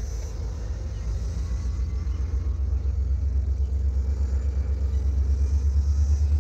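Diesel locomotive approaching from a distance: a low, pulsing engine rumble that grows steadily louder.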